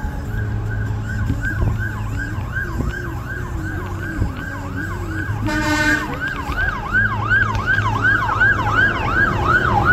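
Fire engine siren on a fast yelp, sweeping up and down about three times a second, with a short horn blast about five and a half seconds in. A steady low hum runs underneath.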